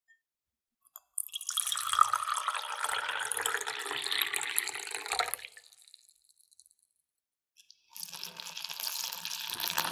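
Water poured into a glass mug for about four seconds. After a short pause it is poured from the mug onto flour in a glass mixing bowl.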